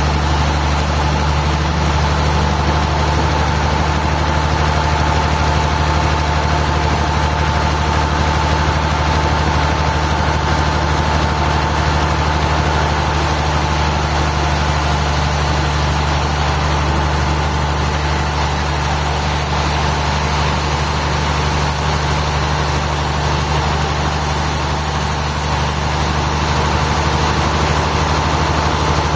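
Engine-driven sawmill machinery running steadily: a deep, even engine hum with a faint steady whine above it.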